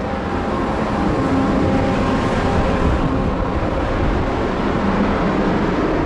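Steady, loud drone of a grain dryer running: an even rumble with a few faint steady tones in it, unchanging throughout.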